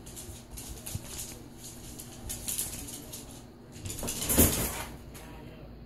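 Schnauzers' paws scuffling and clicking on a hardwood floor during play, then a loud thump about four seconds in as one dog leaps up onto the top of a wire dog crate.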